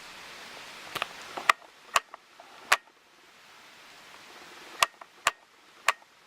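Sharp, irregular clicks of small metal parts being handled with tweezers while the pins and spools are picked out of an American 570 padlock's plug. There are about seven clicks, spread unevenly.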